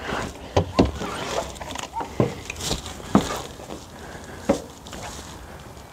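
A few scattered knocks and clicks as an RV's entry door is unlatched and swung open and someone steps up the entry steps into the doorway.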